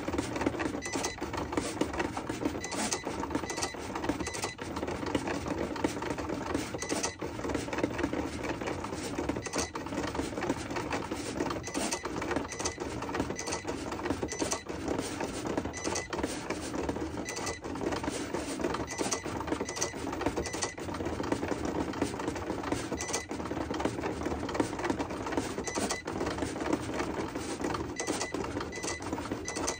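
Cricut cutting machine working as it cuts a label from a metallic sheet: its motors drive the carriage and rollers with a continuous whirring and frequent short clicks.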